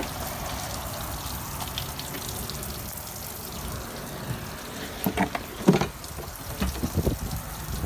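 Steady hiss of water, with a few sharp clicks and knocks about five to six seconds in as a gloved hand works the outboard's plastic engine cowling.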